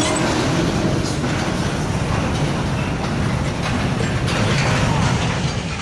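Freight train derailing: covered hopper cars rolling past with a steady heavy rumble, and metal grinding as the derailed cars tear along and tip over.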